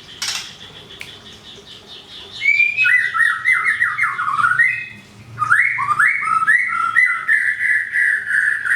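A songbird singing loud, rapid phrases of sliding, warbling notes, with a short break about halfway. Before the song starts about two seconds in there are softer high chirps and two sharp clicks.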